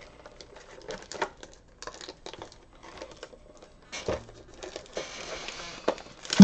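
A trading-card box and its wrapping being opened by hand: crinkling and rustling with scattered clicks and taps, and a longer rustle about five seconds in.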